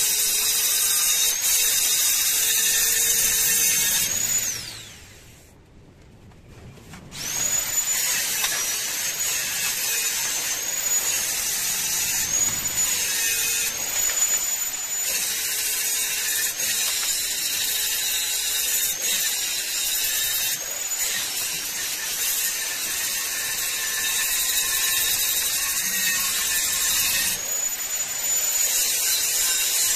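Small high-speed electric power tool running, its whine dipping in pitch again and again as it is pressed into work and recovering when eased off. About four seconds in it is switched off and winds down, and about three seconds later it spins back up and carries on cutting or drilling.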